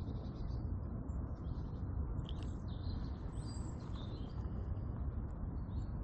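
Small birds chirping and calling in short high notes, busiest in the middle, over a steady low outdoor rumble.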